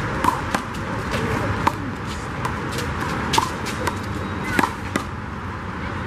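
Handball rally: the small rubber ball slapped by hand and smacking off the concrete wall and court, about eight sharp, uneven smacks over a steady background hum.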